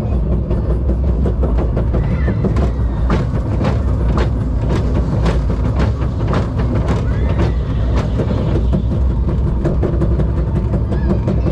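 Zierer Force Two roller coaster train climbing its lift hill: a steady low rumble with sharp clacks about two a second, the usual lift-hill clacking, which stop about eight seconds in as the train nears the top.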